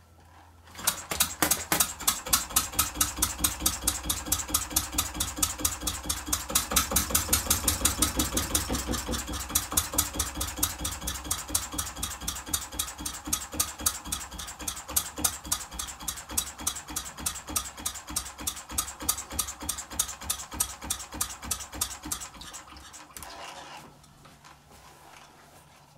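Small hand-built vertical A-frame model diesel engine (20 mm bore, 40 mm stroke, running on kerosene and lamp oil) catches about a second in and runs with a fast, even knocking beat of several strokes a second. It runs faster and louder at first, then slower, and stops about 23 seconds in.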